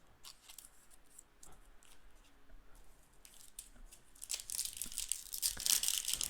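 Plastic wrapper of a trading-card booster pack being torn open and crinkled. It starts about four seconds in, after a few faint handling clicks, and is loudest near the end.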